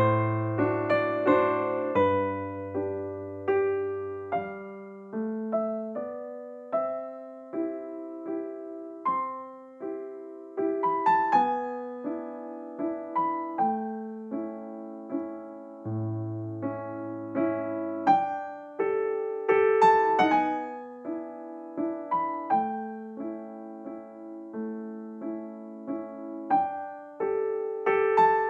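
Soft background piano music, a slow melody of single struck notes over sustained low chords.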